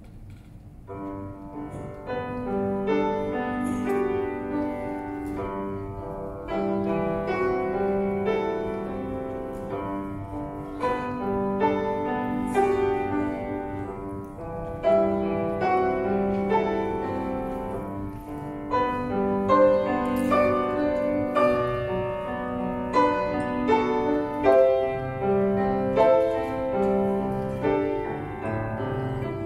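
Grand piano played solo: a classical intermezzo that comes in softly about a second in and grows louder, with held chords under a melody.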